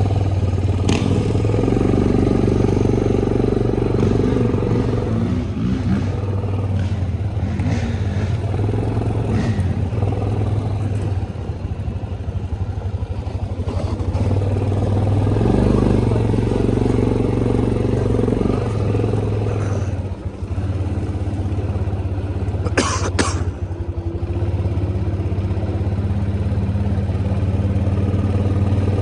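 ATV engine running while riding a trail, its pitch rising and easing with the throttle. About two-thirds of the way through come two sharp knocks in quick succession.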